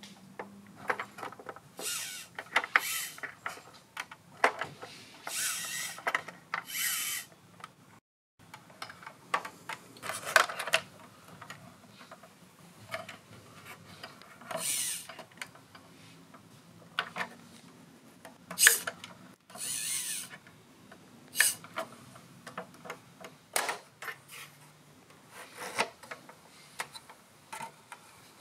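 Hands handling the plastic body and parts of a 1/6 scale RC Willys jeep model: scattered clicks and taps with short rubbing, rustling scrapes.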